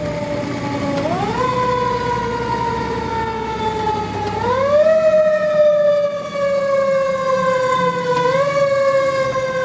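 Federal Q2B mechanical siren on a fire engine, wound up three times, about a second in, around four seconds in and around eight seconds in. Each time the wail climbs quickly and then slowly coasts down in pitch, over the truck's low engine and road rumble.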